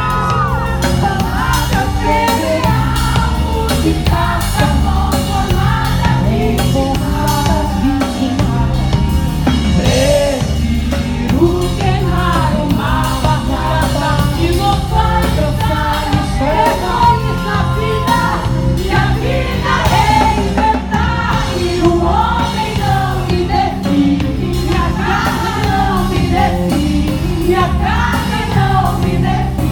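Live band music with singing: steady bass and drums under sung vocal lines, with cello in the band.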